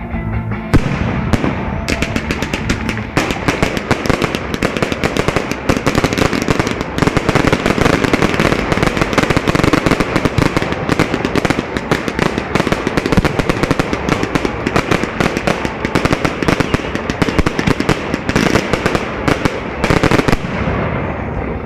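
Fireworks display at full intensity: a dense, unbroken barrage of rapid bangs and crackles from many shells going off in quick succession, easing slightly near the end.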